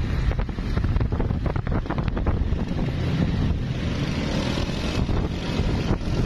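Wind buffeting the microphone on a moving motorcycle, gusty and uneven, over the motorcycle engine running at road speed.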